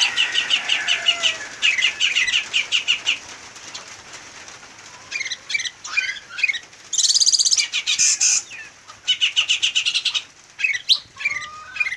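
Caged songbirds singing, a leafbird (murai daun) among them: bouts of fast, high, repeated chirping trills with short pauses between. About seven seconds in comes a quicker, higher trill, and near the end a run of short falling whistles.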